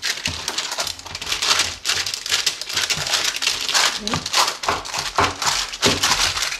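Baking paper crinkling and rustling in repeated strokes as hands press and stretch pizza dough across a paper-lined baking tray.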